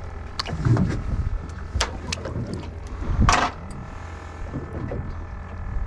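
Fishing boat on the water: a steady low rumble with scattered clicks and knocks from handling the rod and catch. About three seconds in there is a short, louder rush as a sheepshead is hoisted out of the water and swung aboard.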